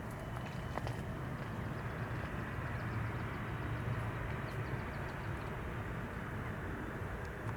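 Steady low rumble of the Airbus A321-211's CFM56 jet engines, swelling slightly midway and easing off again.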